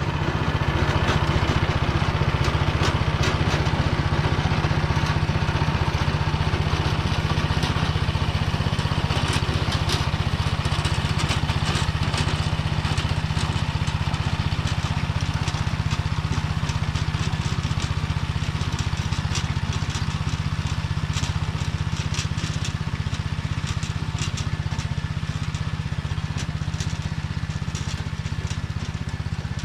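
Tractor engine running steadily under load while pulling a Motor Sich rotary tiller (milling cutter) through hard, dry soil, with scattered cracks and crackles throughout as the blades break up the ground.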